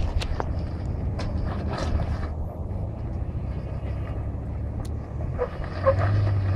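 A 4x4's engine working under load as it climbs a rocky slope, a steady low drone that grows louder about six seconds in, with scattered crunches and knocks of stones.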